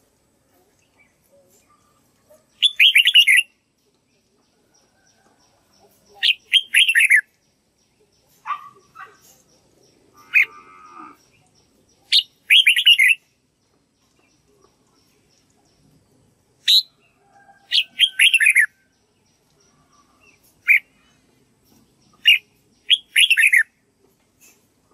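Red-whiskered bulbul singing short, bright phrases of quick chirping notes in bursts every few seconds, with quiet gaps between them.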